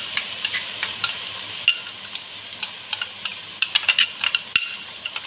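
Sliced onions frying in coconut oil in a large pot, a steady sizzle, with short sharp clicks of a metal spoon tapping and scraping as ginger garlic paste is knocked into the pot; the taps come thickest a little under four seconds in.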